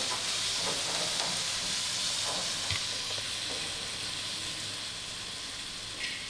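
Food sizzling steadily in hot cooking oil in a pot, a steady frying hiss that eases off slightly, with a few faint light knocks.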